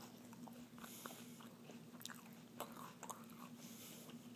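Faint scattered clicks and small crunches over a steady low hum: a springer spaniel chewing a piece of apple.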